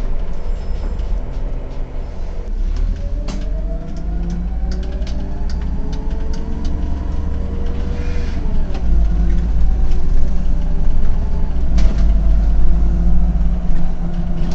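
Autosan M12LF CNG city bus driving, heard from inside the driver's cab: a steady low engine rumble with a whine that rises in pitch as the bus accelerates from about two seconds in, then falls away around eight seconds in. Scattered clicks and knocks of cab rattles over the top.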